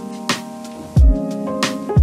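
Background music with a steady beat: a deep kick drum and crisp snare hits under held keyboard chords.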